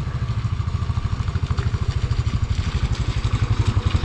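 Hero Xpulse 200 motorcycle engine running steadily on the trail, its exhaust beating in an even, rapid pulse.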